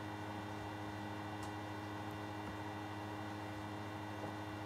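Steady electrical mains hum with a faint hiss, the recording's background noise, with no other sound apart from a faint tick about one and a half seconds in.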